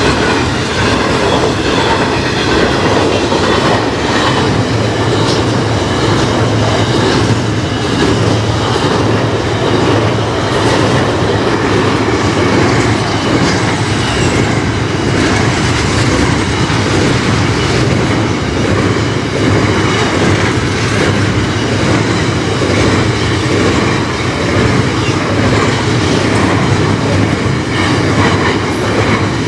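Freight train of container flat wagons rolling steadily across a bridge overhead, with loud continuous wheel and rail noise from the passing wagons.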